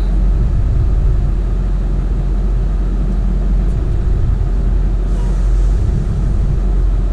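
Ford F-350 Super Duty dually pickup idling, a steady low rumble heard from inside the cab, with a faint hiss about five seconds in.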